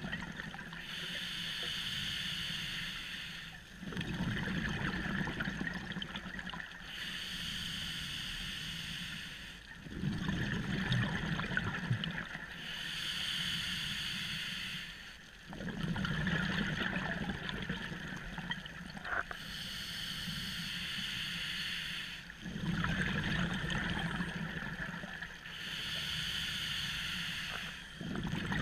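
Scuba diver breathing through an open-circuit regulator underwater: a hissing inhale of two to three seconds alternates with a gurgling rush of exhaled bubbles, about one breath every six seconds.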